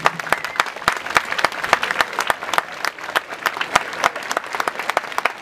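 Audience applauding, many hands clapping at an even density.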